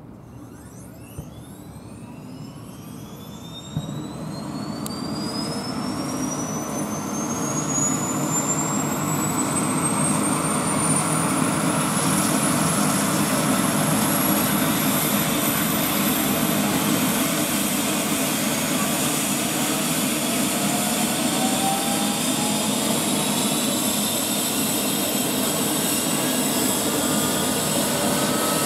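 Eurocopter EC135 twin-turbine helicopter engine starting: a turbine whine rises steadily in pitch over about twelve seconds as the engine spools up, then holds steady while the main rotor turns. A sharp knock comes near four seconds in, and a fainter second rising tone appears near the end.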